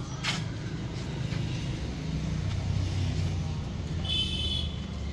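A vehicle engine running steadily at idle, with a short click near the start and a brief high-pitched tone about four seconds in.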